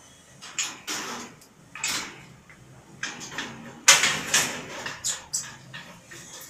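Wire pigeon cage door and its metal hook latch rattling and clanking as they are handled, a series of separate knocks with the sharpest clank about four seconds in.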